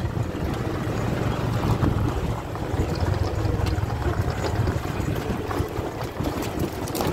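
Motorcycle engine of a tricycle running steadily on the move, with wind rushing over the microphone and light rattling from the ride.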